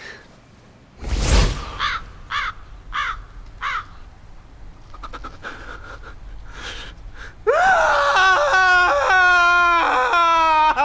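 A young man's long, loud yell, one held 'ah' that starts about seven and a half seconds in and falls in pitch as it trails off. Before it come a short noisy burst about a second in and four short chirp-like sounds.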